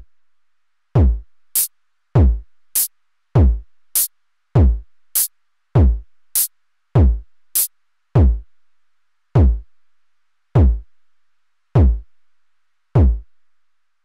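Eurorack modular synthesizer playing a sparse electronic drum pattern: a deep drum hit that drops in pitch, about every 1.2 seconds. Between the first six of those hits comes a short bright tick, and the ticks stop about 8 seconds in.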